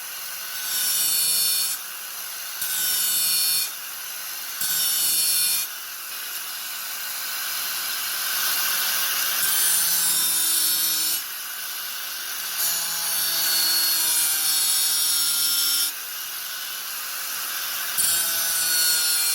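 Angle grinder running continuously, its disc pressed into the work again and again: three short grinding passes of about a second each, then longer passes of two to three seconds. Between passes the motor keeps running with its steady whine.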